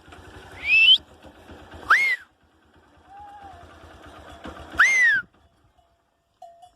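Cachorros-do-mato giving four high, whistle-like yelps. Each call rises in pitch, and the later ones arch over and fall away again.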